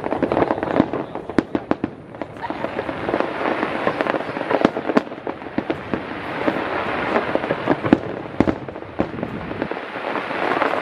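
Aerial firework shells bursting: a steady run of sharp bangs and pops over a dense crackling hiss that swells and fades several times.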